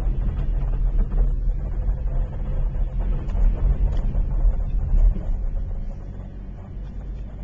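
Low, steady rumble of a vehicle moving along a snowy street, easing a little near the end.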